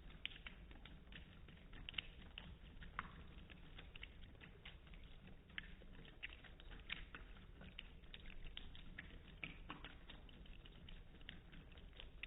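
A cat lapping water with its tongue: a faint, irregular run of small wet clicks, a few a second.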